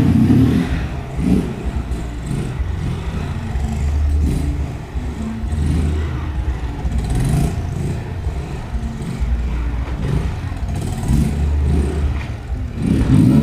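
Motorcycle engine running loud and being revved, its rumble swelling and dipping.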